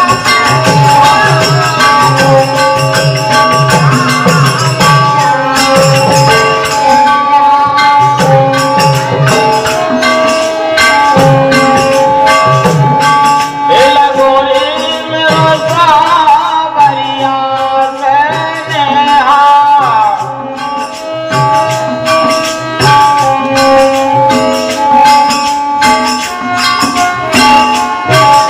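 Birha folk music: a harmonium holding and moving between steady notes over a steady beat of hand drums and jingling percussion. About halfway through a voice sings a long, wavering melismatic line, and the drum beat drops out briefly before returning.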